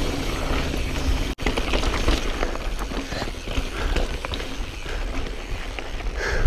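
2016 Specialized Stumpjumper S-Works full-suspension mountain bike rolling fast down rocky singletrack: tyres crunching and ticking over sharp rock and the bike rattling, over a steady low rumble of wind on the action camera's microphone. The sound cuts out for an instant about a second and a half in.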